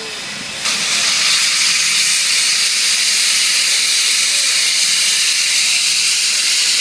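Southern Pacific 745, a 2-8-2 steam locomotive, venting steam in a loud, steady hiss that starts abruptly about half a second in.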